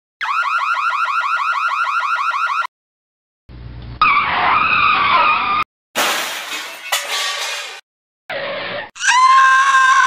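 A string of edited-in sound effects: first a fast electronic alarm warble of rising chirps, about eight a second, for two and a half seconds; after a short silence, a few short noisy clips including car brakes and skidding tyres; near the end a long held horn-like tone that sinks slightly.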